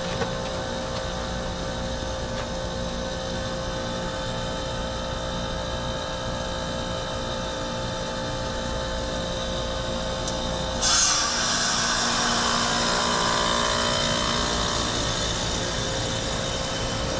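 2007 Heil 5-ton heat pump's scroll compressor running with a steady whining hum during its defrost cycle. About eleven seconds in a sudden loud whoosh of refrigerant breaks in and keeps hissing: the reversing valve shifting over on the defrost changeover.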